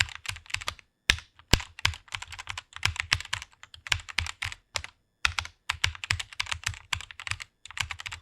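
Computer keyboard typing: rapid, irregular key clicks in quick runs, with short pauses about a second in and near the middle.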